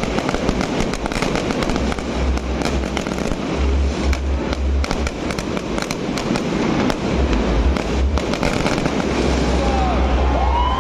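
Fireworks display: a dense, rapid series of bangs and crackles over a continuous rumble, thinning out near the end.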